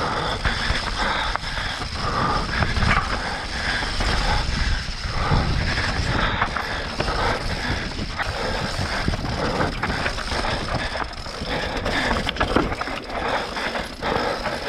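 Mountain bike rattling and clattering as it rolls over a rocky dirt trail: a dense run of irregular clicks and knocks from the chain, wheels and frame, over a steady low rumble of wind on the microphone.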